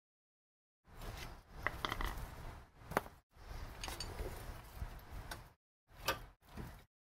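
Clinks, sharp taps and scraping of metal tools and brake parts being handled, in short bursts that cut in and out.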